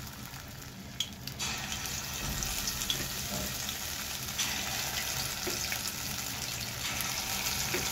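Lauki (bottle gourd) kofta balls deep-frying in hot oil, a steady sizzling hiss that gets louder in two steps as more balls are dropped in.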